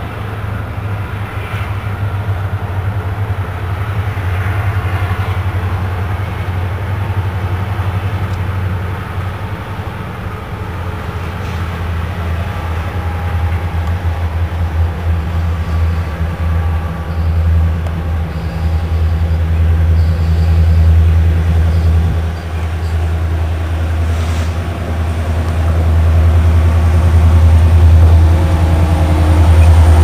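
Two EMD diesel-electric freight locomotives, an SD70M-2 leading, running with a steady low engine rumble that grows louder as the train draws near.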